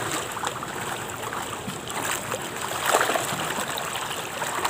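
Fast-flowing, muddy floodwater of a small stream rushing steadily, with a few small splashes from someone washing in it, the loudest about three seconds in.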